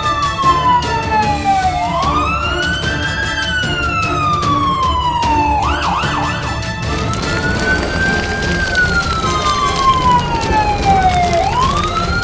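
Wailing fire-engine siren sound effect, rising quickly and falling slowly in pitch about every four to five seconds, with a short fast warble about six seconds in. Background music plays underneath.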